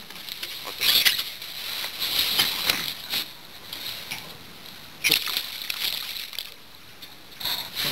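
A small halibut dropped back into the sea from a boat, splashing into the water about five seconds in, with rough rustling and handling noises before it.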